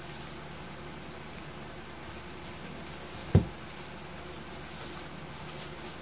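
A single short, dull thump about three and a half seconds in, as an unboxed item is handled or set down, over a steady faint hiss.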